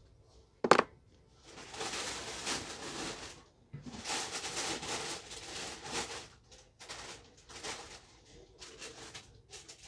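A sharp knock about a second in, then a series of rubbing strokes on a shoe during a shoe shine: two long ones of about two seconds each, then shorter ones near the end.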